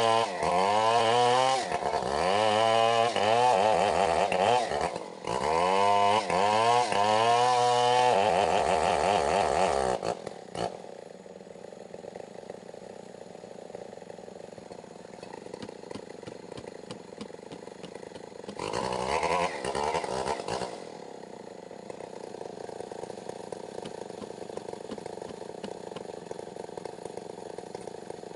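Stihl 070 two-stroke chainsaw running at full throttle through wood, its pitch repeatedly dipping under load and climbing again. About ten seconds in it drops to a steady idle, and it is revved once briefly about 19 s in.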